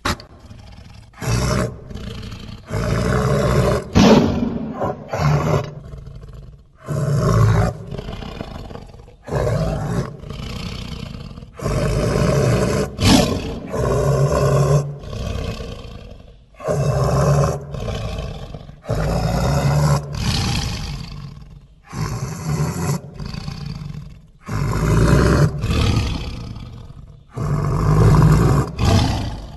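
Smilodon (sabre-toothed cat) film sound effects: a long string of separate big-cat roars and growls, each one to two seconds long, with short gaps between.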